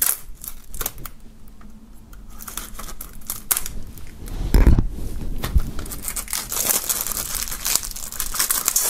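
Clear plastic shrink-wrap on a CD jewel case being slit with a knife and peeled off, with scattered clicks at first and dense crinkling and tearing in the second half. A single thump comes about halfway through.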